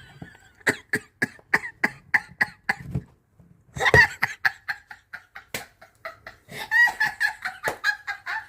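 A woman laughing hard in a long run of short, breathy bursts, about three or four a second, with one louder burst about four seconds in.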